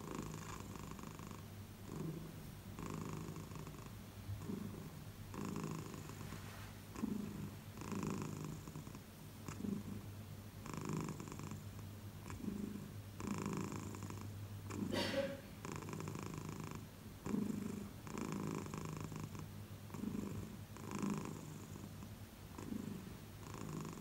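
Long-haired tabby cat purring in its sleep, the purr swelling and fading with each breath, roughly one breath every second and a half. A brief rising squeak a little past halfway.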